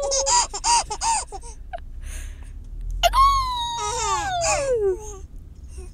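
Infant laughing: a quick run of four short giggles in the first second, then about three seconds in a long high happy squeal that slides down in pitch. The low rumble of the moving car runs underneath.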